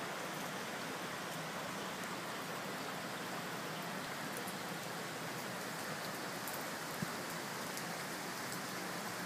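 Steady rain falling, with scattered drops tapping on surfaces and one soft knock near the end.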